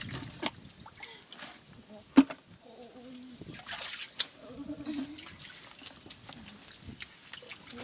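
Hands splashing and sloshing in shallow muddy water while groping for fish, with scattered short splashes and one loud sharp knock or splash about two seconds in. Faint voices come and go.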